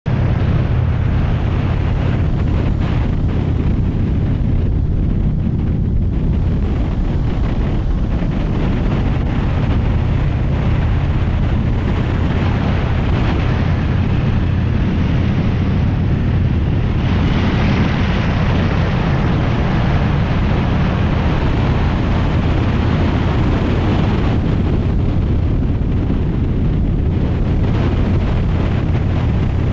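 Motorcycle engine running steadily at cruising speed, with wind noise on the microphone that grows louder through the middle stretch of the ride.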